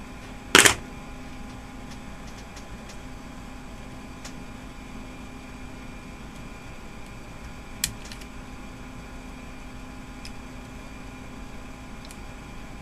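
Wire stripper's cutter snipping through power-supply fan wires: one sharp snap about half a second in and a fainter one about eight seconds in, over a faint steady hum.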